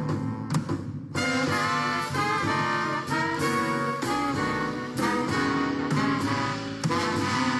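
Background music led by brass instruments in a jazz style, playing a melody, with the fuller ensemble coming in about a second in.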